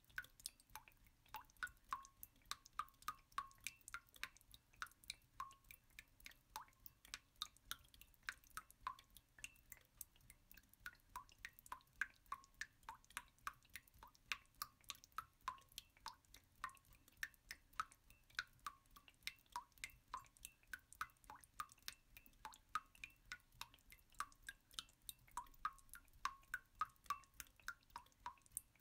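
Quiet, irregular patter of water drops, each a short plink, about three a second.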